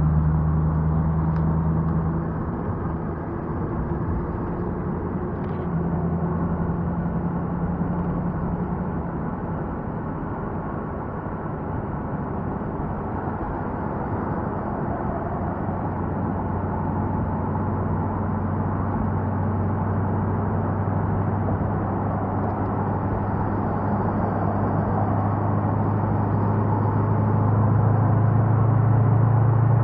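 Engine and road noise of a car driving on a freeway, heard from inside: a steady rumble with a low hum that shifts in pitch and grows louder near the end.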